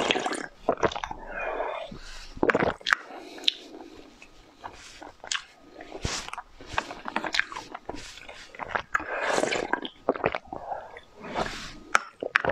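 Close-miked eating sounds: sucking and slurping candy from a tube, then chewing and crunching with wet mouth noises. Sharp clicks come throughout, including one near the end as a glass test tube is lifted from its rack.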